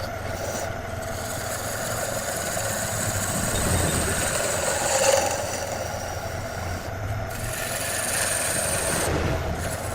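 Wood lathe running while a turning tool cuts the spinning wood: a continuous scraping hiss over the motor's steady low hum.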